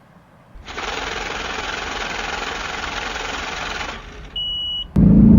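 A gas station fuel pump runs with a steady rushing whir for about three seconds, then gives a short high beep. Near the end a loud car engine cuts in: a 2021 Ford Mustang GT's 5.0 V8 running.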